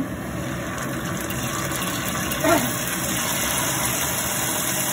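Minced garlic sizzling steadily in hot oil in a wok, with some faint crackles, as oyster sauce is poured in. A low steady hum runs beneath it.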